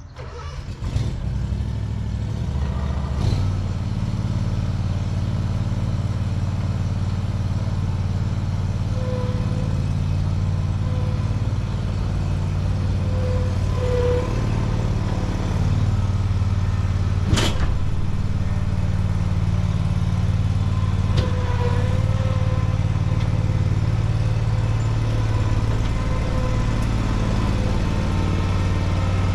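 Chevrolet Colorado pickup engine running steadily while driving with a trailer in tow, with one sharp click about seventeen seconds in.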